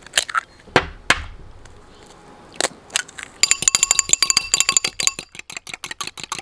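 A few sharp taps as eggs are cracked over a ceramic bowl. Then, about halfway through, a metal fork beats the eggs in the bowl, clinking fast and steadily against the ringing ceramic.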